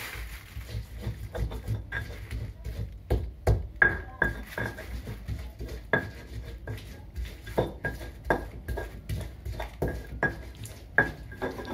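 Spice paste being ground by hand in a mortar with a pestle (Indonesian cobek and ulekan): a run of short knocks and scrapes of the pestle against the mortar, about two a second and irregular.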